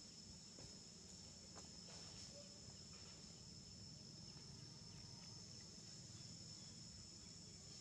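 Near silence: faint outdoor background with a steady high-pitched insect drone, and a few faint soft ticks.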